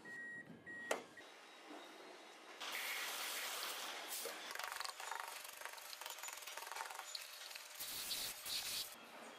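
A car door clicks open about a second in, after two short high beeps. Then a steady hiss of water spray and brush scrubbing on the car, loudest near the end.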